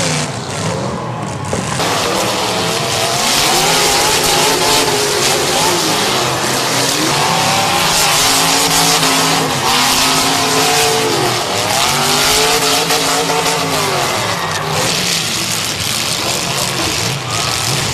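Several demolition derby cars' engines revving, their pitch rising and falling over and over, over a steady noisy din.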